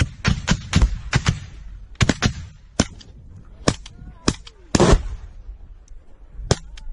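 Rifle fire at close range in single shots: a quick string of cracks in the first second, then shots about a second apart, with one longer, louder crack about five seconds in.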